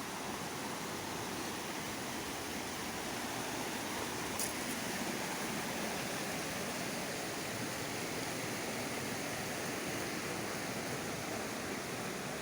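Waterfall rushing: a steady, even hiss of falling water, with one faint short tick about four seconds in.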